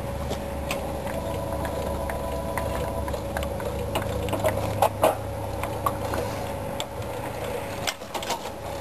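Steady drone of a lawnmower engine running, with light metallic clicks from the hand crank of a swing-back trailer jack being turned. The drone drops away near the end.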